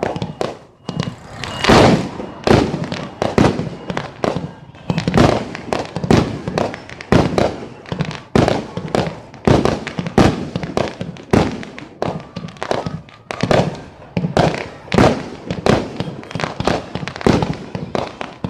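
Aerial fireworks display bursting in rapid succession, about two to three loud bangs a second, each echoing briefly, without a break.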